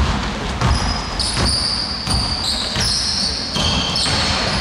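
Basketball dribbled on a hardwood gym floor, a thud every second or so, with several short high-pitched sneaker squeaks from players' shoes on the court.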